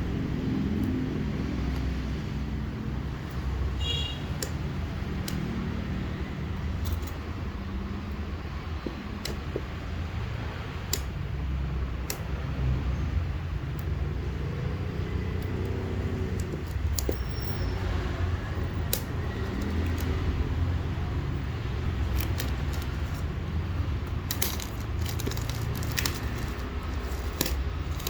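Scattered clicks, taps and light rattles of a phone and its packaging being handled, over a steady low rumble.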